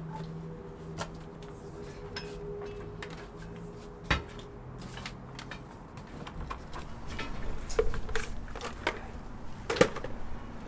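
Footsteps and the clatter and knocks of a carried chainsaw and gear being handled, with one sharp knock about four seconds in and closer, louder clunks near the end as the gear is set down. A faint low hum fades out partway through.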